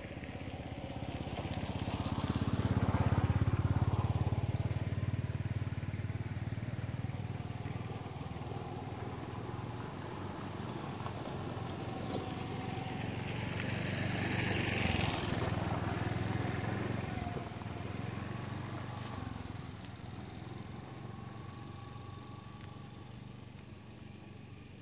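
Motorbike engine noise passing by, swelling about two seconds in and again about halfway through, then fading away.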